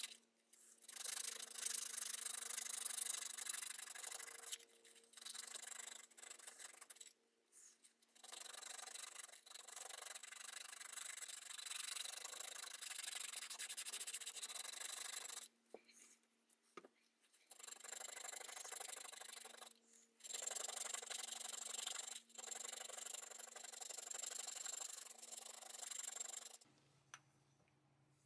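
Sandpaper rubbed by hand over the bare aluminium housing of a 1960s Black & Decker D520 drill. A scratchy rubbing comes in bouts of a few seconds with short pauses between them, and it stops about a second and a half before the end.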